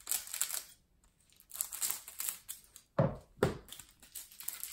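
Wrapper of a trading card pack crinkling and tearing as it is cut open and pulled apart, in several rustling stretches. Two dull knocks come about three seconds in.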